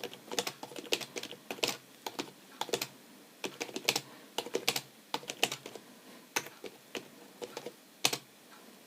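Typing on a Lapcare LKB300 membrane USB keyboard: irregular quick key clicks, several a second, with brief pauses.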